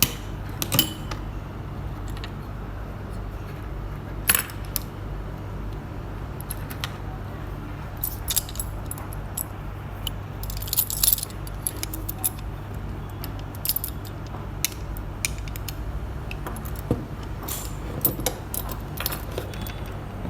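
Old handmade door lock being worked with its key: scattered metallic clicks and clinks of the key and mechanism, with keys jangling now and then, over a steady low hum.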